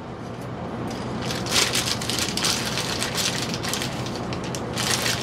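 Crunching popcorn being chewed, with the crinkling of a clear plastic bag being handled, a dense crackle that grows busier about a second and a half in.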